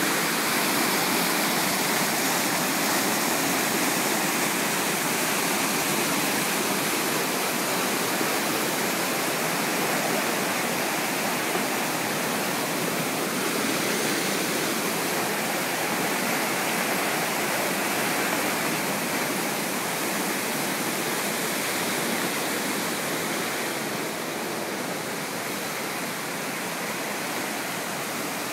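Rain-swollen creek rushing and churning over rocks in a steady, unbroken wash of water noise, a little softer near the end.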